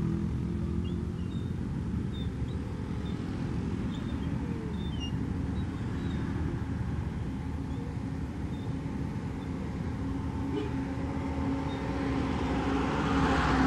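Motorcycle engine running steadily at low speed in slow, jammed traffic, with other vehicles around. Near the end a passing truck adds a swelling rush of noise.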